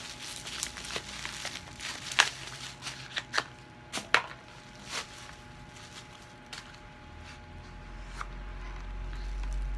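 Packaging handled during an unboxing: a quick run of sharp taps and clicks in the first half, then a low rumble building near the end.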